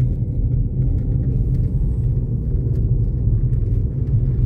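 Car engine and tyre noise heard from inside the cabin: a steady low rumble as the car climbs a mountain road.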